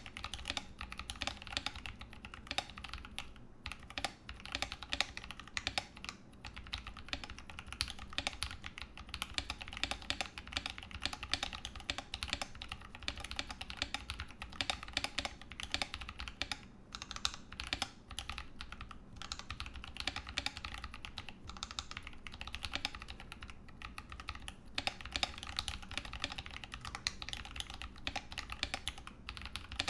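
Continuous fast typing on a Ramaworks M60-A mechanical keyboard with Holy Panda tactile switches and GMK keycaps, dampened inside with Sorbothane and an internal weight: a dense run of keystroke clacks with only brief pauses.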